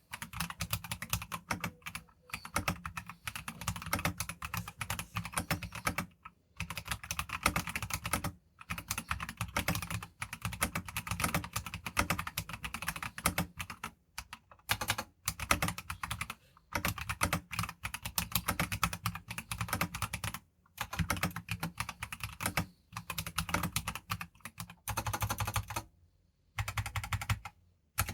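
Typing on a BM980 mechanical keyboard with stock Akko CS Lavender Purple tactile switches and XDA-profile keycaps: runs of rapid keystrokes broken by short pauses every few seconds.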